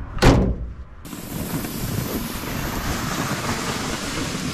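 A pickup tailgate thuds shut near the start. About a second in, a steady rushing noise begins: a loaded plastic ice-fishing sled dragged over a packed snow trail, with wind on the microphone.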